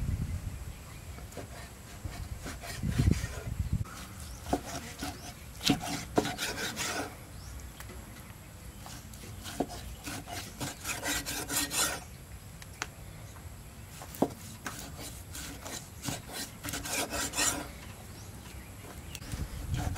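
A cleaver saws through slabs of raw pork belly on a wooden chopping block. It comes in bursts of quick rasping strokes as the blade works through the rind, with now and then a sharp knock of the blade on the wood.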